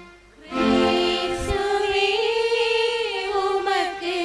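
Small women's choir singing the congregation's sung response to the Gospel reading at Mass, a slow, drawn-out melody with wavering, gliding notes. It begins about half a second in, after the priest's chanted note fades.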